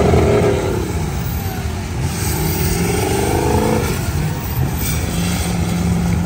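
Mud truck's engine revving in the mud, its pitch dropping in the first second, climbing again from about two seconds in and falling off near four seconds, over a steady low rumble.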